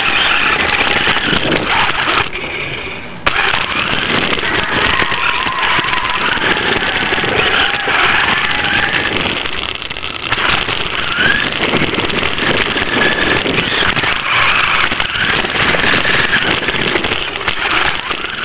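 Onboard sound from a camera riding on a toy R/C car: the car's small electric motor whining, its pitch sliding up and down with speed, over a dense rushing noise of the tyres on concrete. The sound drops to a quieter lull about two seconds in and fades out at the very end.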